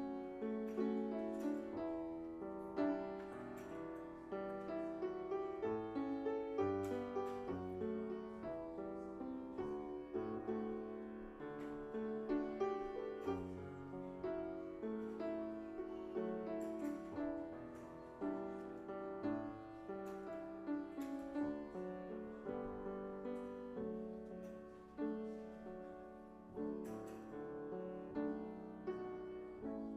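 Piano playing a continuous run of struck notes and chords.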